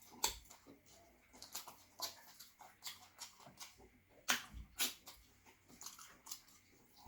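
Close-miked chewing and mouth sounds of someone eating: irregular short clicks, with two louder ones a little past four seconds in.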